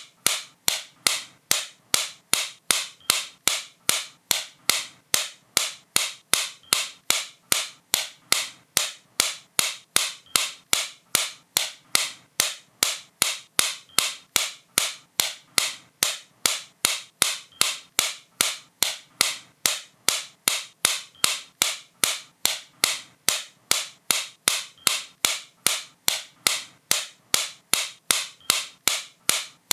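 Sharp, bright clicks repeating at a steady rate of about two a second, with no pause or change.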